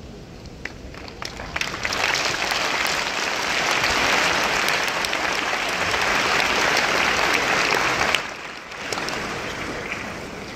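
Audience applauding: a few scattered claps swell within a couple of seconds into full applause, which stops abruptly about eight seconds in, leaving a brief smaller patter of clapping.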